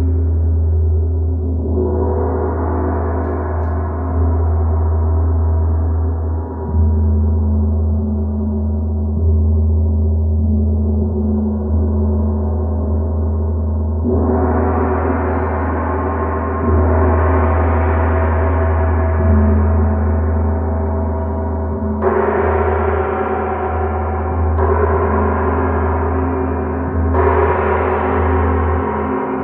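Large gong being played: a long ringing wash of many overlapping tones over a steady deep drone. It swells again with fresh strokes about two seconds in, at about the midpoint, and three times in the last eight seconds.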